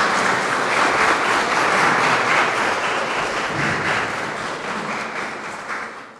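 Audience applauding, the clapping slowly thinning out toward the end.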